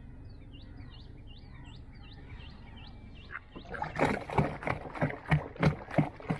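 Water splashing and slapping against the side of a wooden country boat in a quick run of sharp strokes, about three a second, starting about four seconds in. Before that there is only a quiet steady wash of water, with a faint high chirp falling in pitch and repeated several times.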